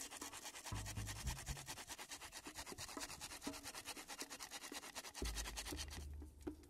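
Folding hand saw cutting through a thin wooden pole of a lashed stick table in quick back-and-forth strokes, trimming off a protruding end. The rasping stops about six seconds in.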